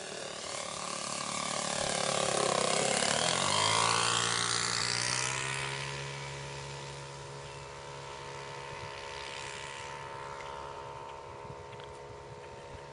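Saito 180 four-stroke model engine and propeller of a 1/5-scale Pica Waco RC biplane on a low flyby. The note swells to its loudest about four seconds in, drops in pitch as the plane passes, then settles into a steadier, quieter drone as it flies away.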